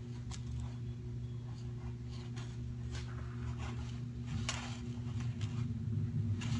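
Kitten digging in loose litter in a plastic tub: soft, scattered scraping strokes, over a steady low hum.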